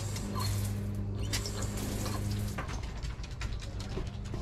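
Outdoor shower being worked at its metal valve handles: a steady low hum from the water plumbing cuts off about two and a half seconds in, with small clicks and squeaks from the handles.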